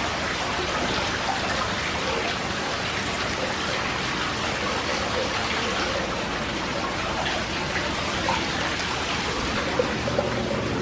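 Steady, even rushing noise inside a car's cabin, holding one level throughout.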